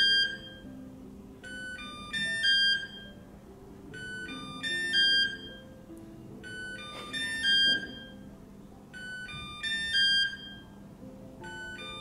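Kyvol E20 robot vacuum playing its locate signal: a short tune of electronic beeps, repeated about every two and a half seconds, to show where the robot is. Soft background music runs underneath.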